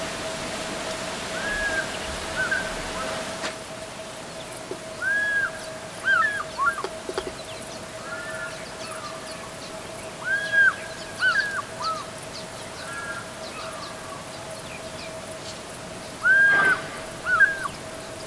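Fish eagle calling in the distance: several ringing phrases of arched, yelping notes that come every few seconds. The loudest phrase comes near the end.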